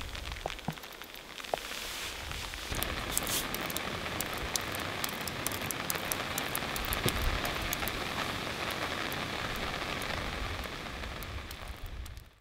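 Rain falling on a surface: a steady hiss dotted with many small drop ticks, growing heavier about two and a half seconds in, then cutting off suddenly at the end.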